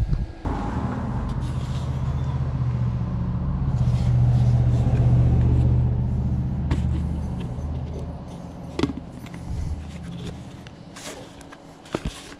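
A motor vehicle's engine running with a low, steady hum that swells to its loudest about four to five seconds in, then fades away. A few sharp knocks near the end as items are handled.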